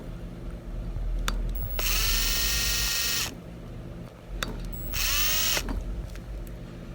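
Low-speed electric drill turning a homemade extractor bit to back a broken 3 mm stud out of a small engine: two short runs, each a whine that rises as the motor spins up then holds, the first about a second and a half long, the second about half a second, with a light click between them.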